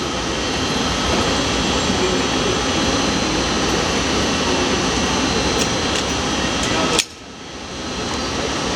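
Steady rushing background noise, then a single sharp gunshot about seven seconds in, after which the sound level dips sharply and recovers over about a second.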